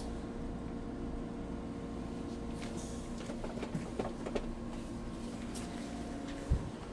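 Steady electrical hum of clinic equipment, with a few light clicks of handling around the middle and a short low thump near the end.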